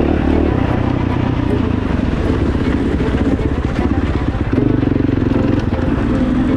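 Single-cylinder four-stroke motocross engine of a KTM 450 SXF dirt bike running hard, its note rising and falling as the throttle is worked, with a clear change in pitch about halfway through.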